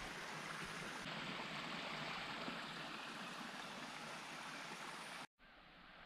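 Steady rush of running water, like a small forest stream, cutting off suddenly about five seconds in and giving way to a fainter hiss.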